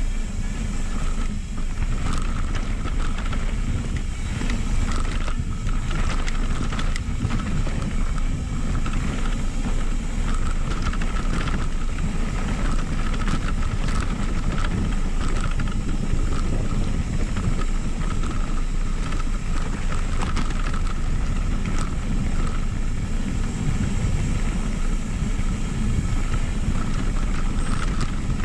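Wind rushing over the microphone and mountain bike tyres rolling over a dirt trail on a descent, steady throughout, with small knocks from bumps and a faint steady high whine underneath.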